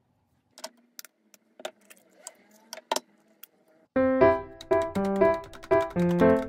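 A few sharp taps and cracks of eggshells being broken into a plastic measuring jug, then background keyboard music starts about four seconds in and is the loudest sound.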